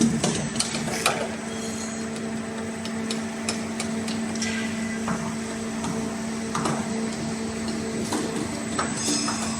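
CNC arch-bending machine running with a steady hum, with scattered knocks and clicks over it.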